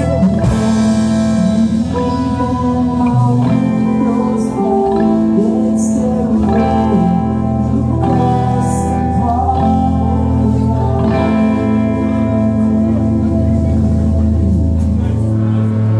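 A live rock band playing loud on electric guitars, with held, ringing chords and a voice singing.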